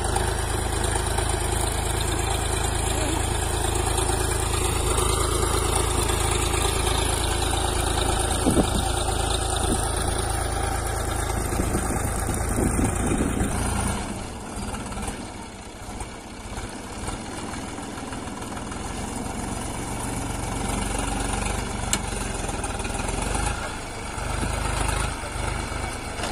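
Swaraj 744 FE tractor's three-cylinder diesel engine running steadily while it pulls a sugarcane planter. It is loud and close for the first half, then quieter and farther off from about halfway through.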